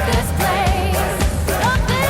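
Pop song with a sung vocal over a steady beat.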